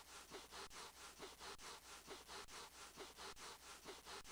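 Cartoon sound effect of a puppy's paws shuffling over carpet: a quiet, steady, rhythmic scuffing at about three strokes a second, as the dog builds up a static charge.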